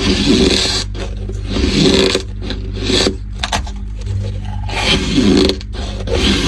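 Squeaky ice dumplings bitten and chewed close to the microphone: repeated squeaky, scraping crunches, about one bite a second. A steady low hum runs underneath.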